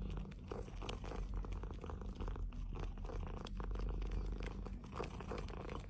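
Domestic cat purring continuously, a low rough rumble.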